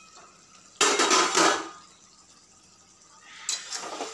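Metal cookware handling: a steel lid clatters down about a second in, then a metal spatula scrapes and stirs vegetables in a metal wok near the end.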